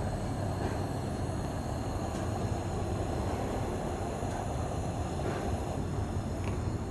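Coleman Model 200 pressure lantern burning, with the steady rushing hiss of its pressurized fuel burning at the mantle. A few faint ticks are heard as it is handled.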